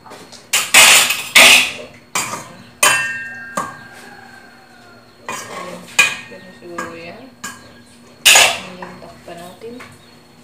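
A cooking spoon stirring in a metal pot, scraping and clanking against it in irregular strokes. The loudest scrapes come about a second in and again near the end, with a brief metallic ring about three seconds in.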